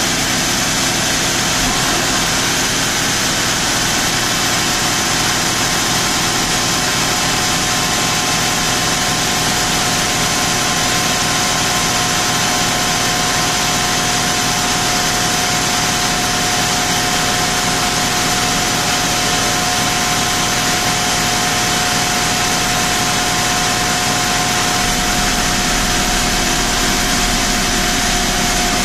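Mercedes M119 5.0 V8 idling steadily in a W201 190 on a chassis dyno, with no revving, under a steady hiss and a thin high whine. The low rumble grows a little louder near the end.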